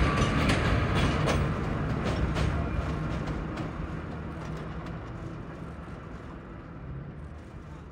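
Vintage IRT Lo-V subway train running on the rails, its wheels clicking over rail joints. The sound fades away steadily.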